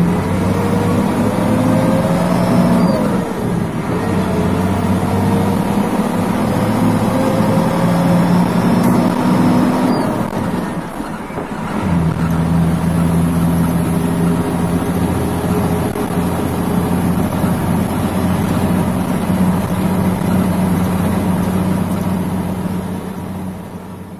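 Old Mitsubishi Fuso dump truck's diesel engine heard from inside the cab while pulling a heavy load of sand. The engine note climbs slowly, drops away briefly about eleven seconds in, then settles into a steady new pitch, and fades out at the end.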